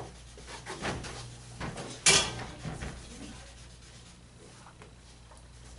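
Shuffling steps and rustling on a classroom floor, with one short, loud scrape of furniture being moved about two seconds in.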